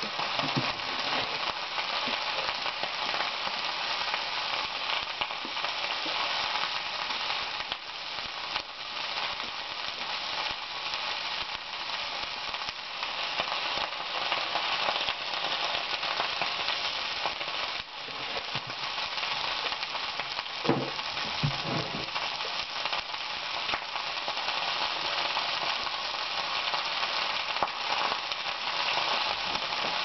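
Chopped vegetables sizzling in a frying pan over the heat, a steady crackling hiss. Two brief low sounds come about two-thirds of the way through.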